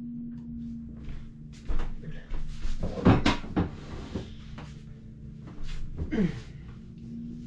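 A man crying out and groaning in pain several times, with falling cries about 3 and 6 seconds in, along with a few knocks; a steady low hum drops out about a second in and returns near the end.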